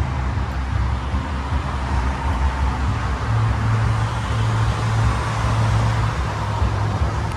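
Steady low rumble of road traffic, with an engine hum that swells for a few seconds in the middle.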